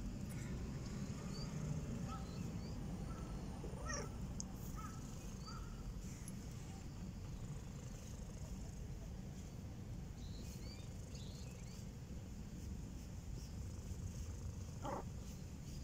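Domestic orange tabby cat purring steadily while being stroked, with a few faint, short high chirps over it.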